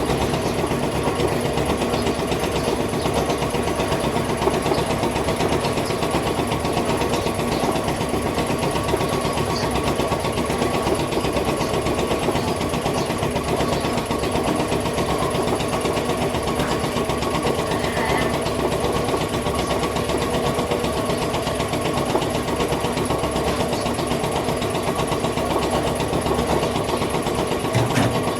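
A machine motor running steadily, a dense mechanical whir with a few fixed tones that does not change.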